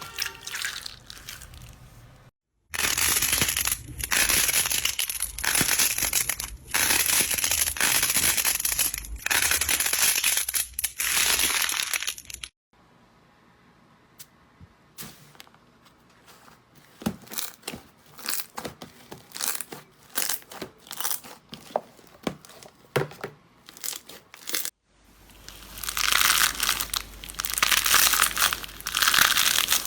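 Slime being pressed and squeezed by hand, giving a loud, dense run of crackles. In the middle it turns quieter, with scattered small pops and clicks, before the loud crackling returns near the end.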